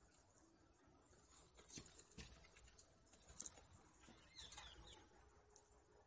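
Near silence with a few faint clicks and a short, faint bird chirp about four and a half seconds in.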